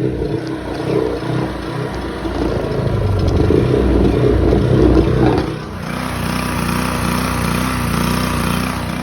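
Honda portable generator's small engine running unevenly on choke with its air filter off, barely keeping running. About halfway through it gets louder and rougher for a few seconds, then drops back suddenly to a steadier run.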